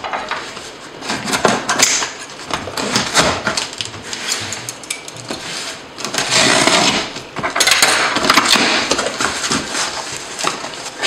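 Cardboard box being opened by hand: a scissors blade slitting the packing tape along the flaps, with knocks and rustles of the box being handled. The longest, loudest scraping comes about halfway through, and packing tape is peeled off the cardboard near the end.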